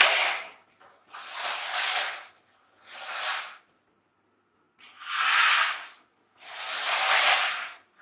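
Battery-operated remote-control toy car's small electric motor and gears whirring in short spurts as it drives on a tile floor: about five spurts of roughly a second each, with silence between them.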